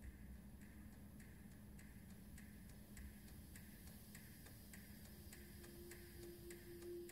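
Faint, regular ticking, a little under two ticks a second, over a low steady hum. A soft held tone comes in near the end.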